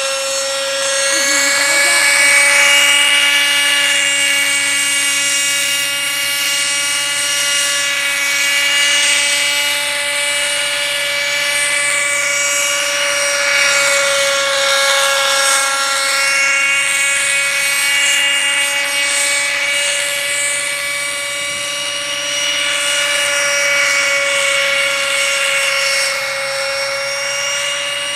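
Helicopter running with a steady high whine that holds one pitch, wavering only slightly, under a slowly sweeping hiss.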